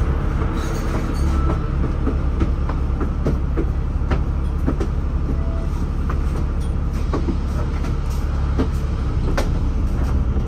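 Cabin noise of a moving city bus: a steady, low engine and road rumble with irregular clicks and rattles from the bus body and fittings.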